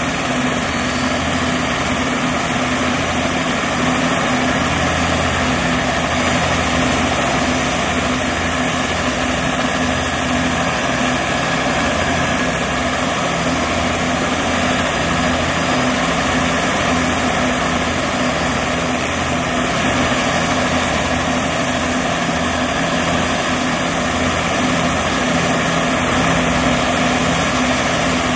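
Bell 206B-3 JetRanger III helicopters running on the ground, their turbine engines and rotors giving a steady whine.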